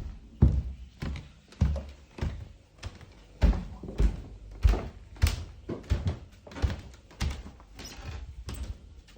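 Footsteps walking at a steady pace, about two steps a second, each a dull thud with some room echo.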